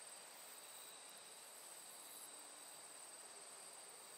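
Near silence: a faint steady hiss with a thin, high-pitched whine.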